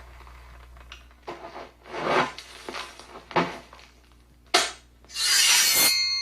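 Hand-worked Foley props being rubbed and scraped: several short scrapes, a sharp knock about four and a half seconds in, then a loud rasping scrape lasting about a second near the end, followed by a ringing tone.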